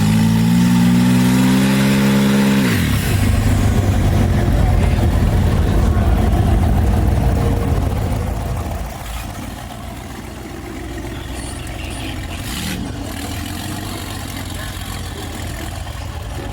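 Turbocharged BMW engine revved, its pitch rising steadily for about two and a half seconds, then dropping off abruptly as the throttle is released. It runs loud and rough for several seconds, then settles to a quieter idle about eight seconds in.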